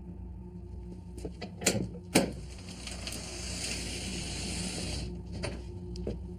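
TV drama soundtrack: a low steady hum, with two sharp knocks about two seconds in and a hiss swelling through the middle.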